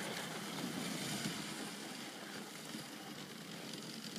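Husky-drawn dog sled pulling away over packed snow: a soft hiss of runners and paws that fades steadily as the team moves off.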